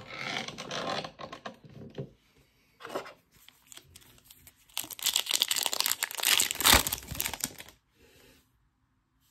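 A Topps Chrome Nippon baseball card pack's wrapper being handled and torn open. There are short bursts of crinkling in the first few seconds, then about three seconds of louder tearing and crinkling that stops near the end.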